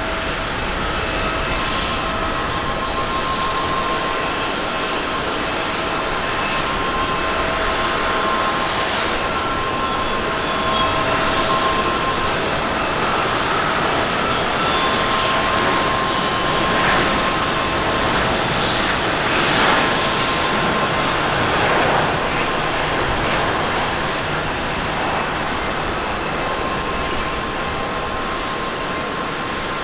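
Airbus A350-1000's Rolls-Royce Trent XWB turbofans at takeoff thrust during the takeoff roll and climb-out. The sound is a steady rush of jet noise with several high, steady whining tones running through it.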